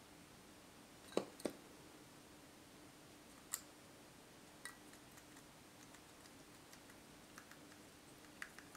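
A young magpie's beak pecking at a ceramic dish of mealworms: a few sharp clicks, two close together about a second in, then scattered fainter ones, over a faint steady hum.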